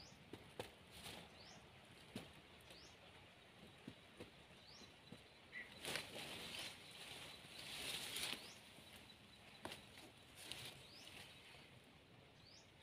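Faint rustling and light clicks from a wire-mesh trap and plastic bag being handled among leaves, swelling twice about halfway through. A bird repeats a short rising chirp every second or two.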